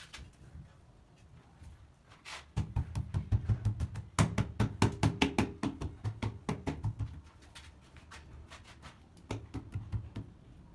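Hands patting and knocking on a ceramic washbasin to bed it into wet cement: a quick, uneven run of taps, about four or five a second for some five seconds, then a few more near the end.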